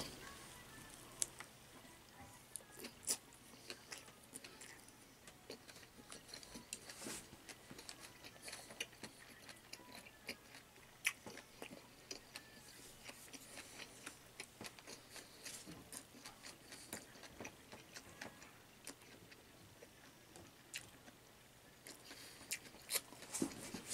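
Faint chewing and mouth sounds of a man eating, with many scattered small clicks and smacks.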